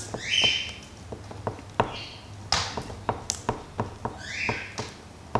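An oil pastel stick drawn in short, quick strokes across paper on a hard table: a string of light, irregular taps with a few brief scratchy strokes between them.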